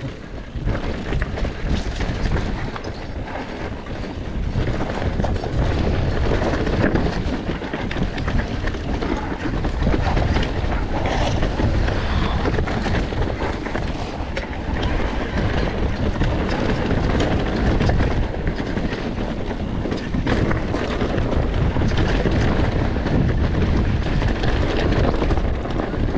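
Enduro dirt bike being ridden over rough off-road ground: the engine running under a constant clatter of knocks and rattles from the bike over the terrain.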